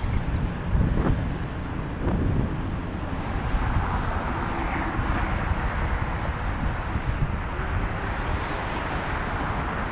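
Wind rumble and road noise on a bicycle-mounted GoPro while riding. A steady rushing roar swells a few seconds in. Two knocks come about a second and two seconds in.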